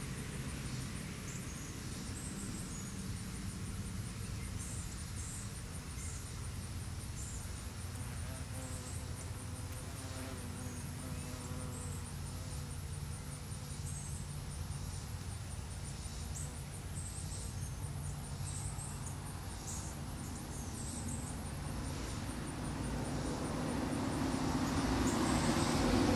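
Outdoor ambience: a steady low rumble like distant traffic, with a thin, rapid high pulsing and short high chirps every second or so. A vehicle rumble grows louder over the last few seconds.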